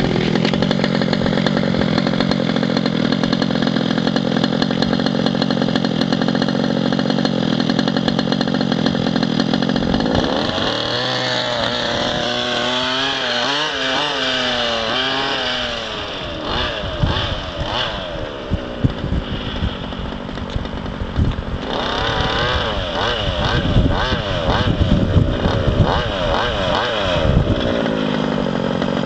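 Small two-stroke petrol engine of an FG Leopard large-scale RC car, running at a steady pitch for about ten seconds, then revving up and down over and over as the car is driven.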